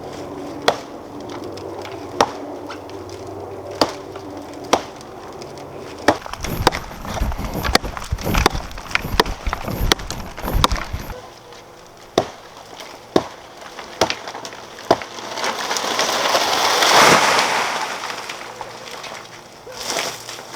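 Machete chopping into the fibrous trunk of a dead, hollow hala (pandanus) tree: a string of sharp woody strikes, roughly one a second. About three-quarters of the way in comes a loud rustling crash that swells and fades over about three seconds.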